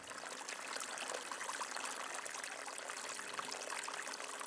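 Running water trickling steadily, an even splashy patter with no breaks.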